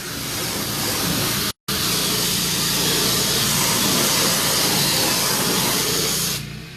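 Pressure washer spraying: a loud, steady hiss of the water jet over the low drone of the washer's engine. The spray stops near the end, leaving the engine running.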